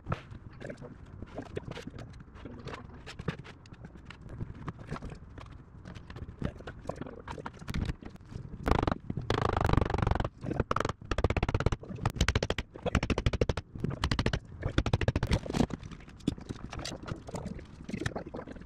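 Knocks, taps and scrapes as a sheet of plywood is pushed and tapped into place against a boat's transom and clamped along its top edge, with a louder, denser run of clicks and knocks from about halfway in.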